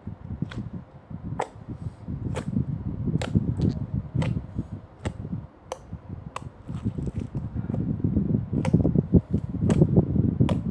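Slime being squeezed and kneaded by hand: steady squelching with sharp clicks about once a second.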